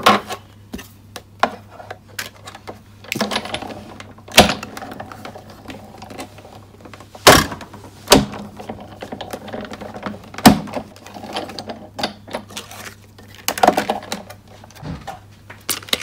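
A Sizzix Big Shot die-cutting machine is hand-cranked, running the plastic cutting-plate sandwich with a metal stitched-rectangle die and cardstock through its rollers. The cranking gives runs of rattling and crunching, broken by several sharp knocks and clunks as the plates are moved.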